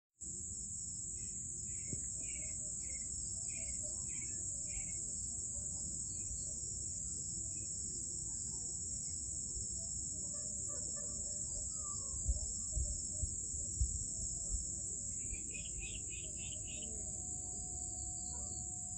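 Night-time insect chorus: crickets trilling in a continuous, high, steady drone. A lower pulsed chirping calls in two short spells, near the start and again near the end, and a few soft low thumps come about two-thirds of the way through.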